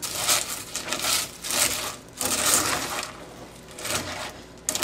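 Cornflakes crunching and a spoon scraping a stainless steel pot while being stirred into sticky melted marshmallow, in a series of irregular strokes.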